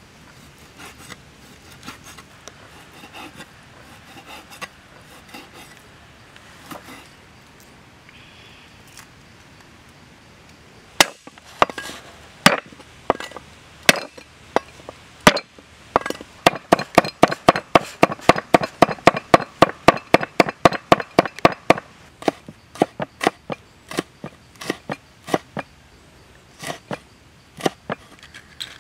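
Cleaver on a wooden chopping board. It makes quiet slicing sounds at first. From about a third of the way in come sharp knocks on the board, speeding into a fast, even run of about five chops a second while mincing garlic and chilies, then slowing to scattered chops.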